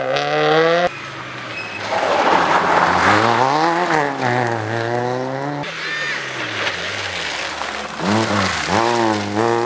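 Rally car engines revving hard through a corner, the pitch rising and falling as the drivers lift, shift and get back on the throttle. The sound changes abruptly twice as one car's pass gives way to the next.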